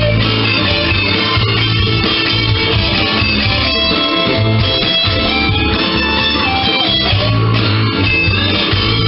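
Gibson electric guitar improvising lead lines over a jam backing track, with a steady bass line underneath.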